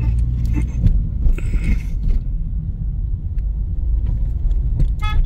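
Steady low rumble of a road vehicle in motion, with scattered light clicks. A brief high beep sounds near the end.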